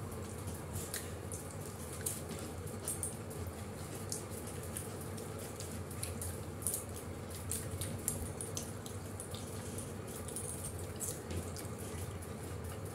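Eating with the hands: rotis being torn and curry mixed on plates, with many small soft clicks and smacks of fingers and chewing. Under it runs a steady background hum.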